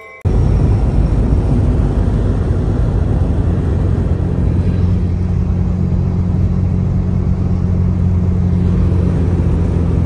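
Car driving at road speed, heard from inside its cabin: a steady, loud low drone of engine and tyre noise that cuts in abruptly just after the start.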